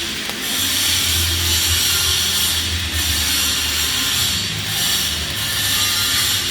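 Flux-cored arc welding on pipe: a steady crackling sizzle from the arc, with a low hum underneath.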